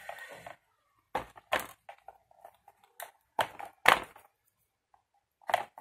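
Handling noise of hands-on paper craft work at a table: a brief scraping at the start, then a handful of separate sharp taps and knocks as a pointed hole-punching tool and plastic-buckled paper straps are worked on a chipboard satchel.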